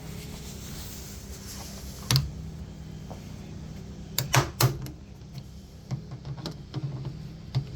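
Hard objects knocking and clicking during repair work: one knock about two seconds in, a quick run of three about four seconds in, then a few lighter clicks, over a steady low hum.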